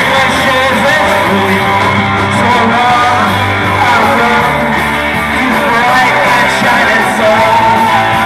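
Live rock band playing loudly: electric guitars, bass and drums with a singer, amplified through a PA.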